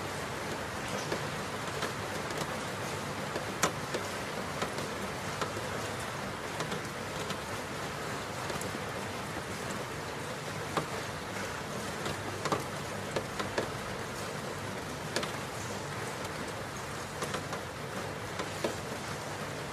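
Steady rain, an even hiss with scattered sharp drop ticks, over a faint steady hum from the 417 Hz and 528 Hz tones.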